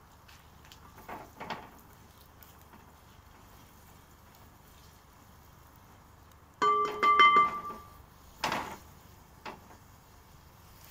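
A utensil stirring frying onions inside a cast-iron pot, scraping, then knocking against the cast iron several times about two-thirds of the way in. The knocks ring with clear metallic tones for about a second, and the pot is struck once or twice more near the end.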